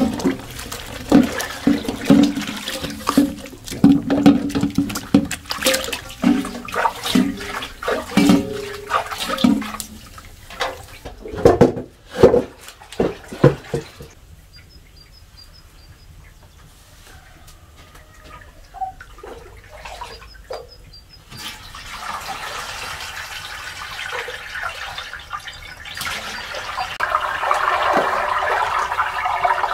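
Sprouted-wheat malt mash knocked and scraped out of an enamel bowl into a metal pot, many clattering knocks with a ringing metallic tone. After a quiet stretch, malt liquid is poured through a cloth strainer into a pot, a steady rush of running liquid that grows louder near the end.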